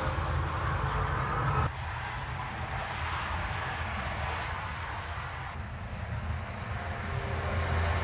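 A steady low mechanical hum under a broad hiss. It drops suddenly in level a couple of seconds in and rises again near the end.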